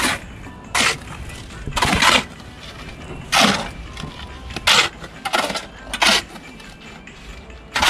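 A series of short, gritty scraping strokes, about one every second or so at uneven spacing.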